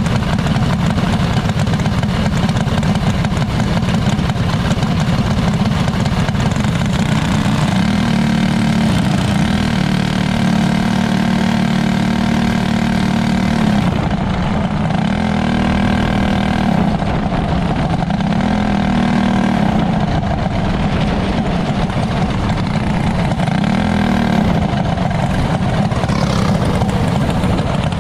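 Engine of a small winged dirt-track sprint car, heard from on board. It runs steadily and revs up and back down about five times at low speed, each time its pitch climbing, holding briefly, then falling.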